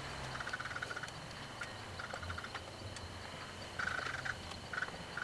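Rapid light clicking in about six short bursts, each lasting a fraction of a second, with pauses between them.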